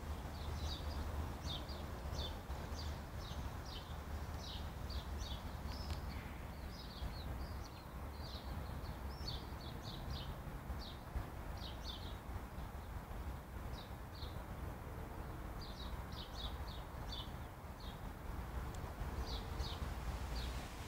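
Small birds chirping in many short, high calls, a few a second, thinning out briefly past the middle, over a steady low rumble.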